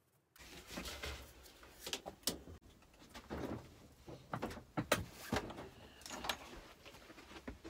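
Irregular knocks, clunks and scrapes of hard objects being handled and moved about, with sounds like a drawer or door being worked.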